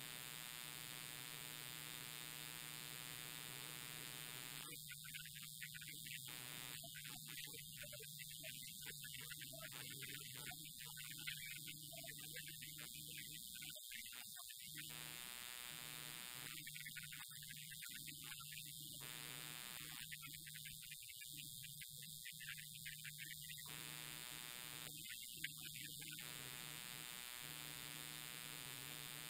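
Steady low droning hum with many evenly spaced overtones. Through the middle stretch its middle range drops out in patches, then returns.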